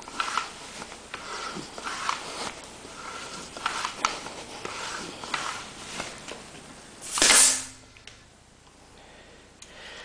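Floor pump being worked to inflate a road bike tire to high pressure, each stroke a short whoosh of air about once a second. About seven seconds in comes one louder, brief hiss of air as the pump head is pulled off the tire valve.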